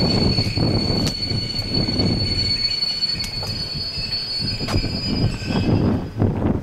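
Passing train, its wheels squealing on the rails in a steady high-pitched squeal over the rumble of the wheels, with scattered clicks as they cross the rail joints; the squeal fades near the end.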